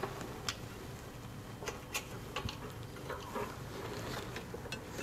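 Faint scattered clicks and light taps of hands fitting a ChassisEar sensor clamp and its lead wire onto the rear suspension knuckle, over a low steady hum.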